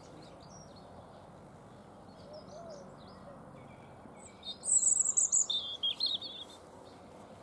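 European robin singing a loud, high warbling phrase about four and a half seconds in, lasting about two seconds, with fainter bird chirps before it.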